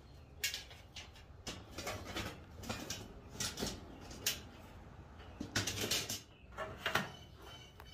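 Scattered light knocks and clatter, about a dozen irregular sharp strikes spread over several seconds, over a faint low background hum.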